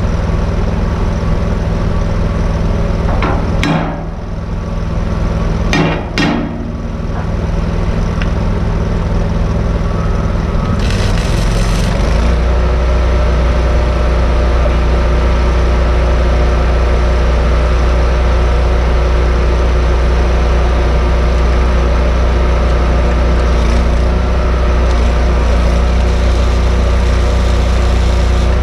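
An engine runs steadily, its low hum getting deeper and fuller about twelve seconds in. A few sharp knocks come in the first several seconds, and a short hiss just before the change.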